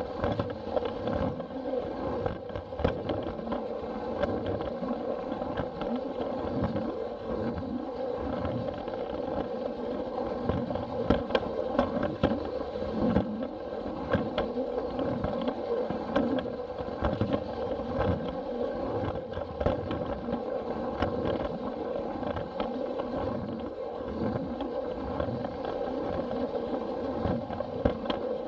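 Plarail toy train's battery-powered motor and plastic gearbox whirring steadily, with scattered light clicks and an uneven low pulsing as it runs along the track.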